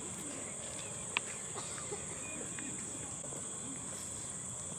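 Crickets chirring in a steady, high-pitched chorus, with one faint click about a second in.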